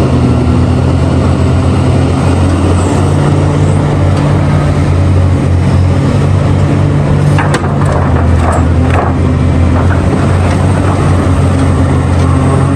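A large diesel mining excavator's engine runs steadily under load as the machine swings, with a few short knocks or rattles about halfway through.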